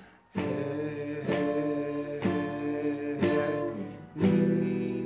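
Classical guitar strummed in steady time: after a brief gap, one chord is strummed four times, about once a second, then a louder strum of a new chord comes about four seconds in. This is chord-change practice to a four-count.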